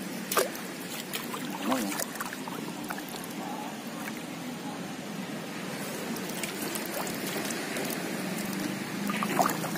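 Shallow water sloshing and trickling as a hand reaches into it, with a few brief splashes.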